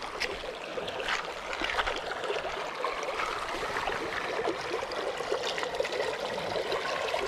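Shallow river water running and trickling over stones and pebbles, a steady babbling rush.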